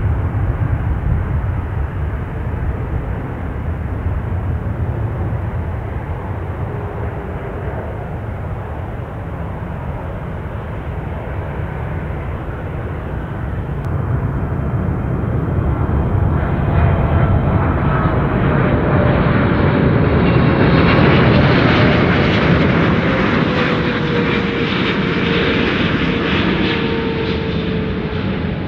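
Jet airliner passing close by. A low rumble builds about halfway through to its loudest near three-quarters of the way, then the engine whine falls in pitch as the plane goes past.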